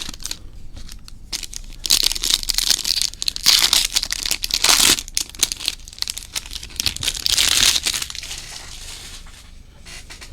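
2021 Bowman Chrome foil card packs being torn open and their wrappers crinkled, in several bursts, loudest about two to five seconds in and again around seven to eight seconds.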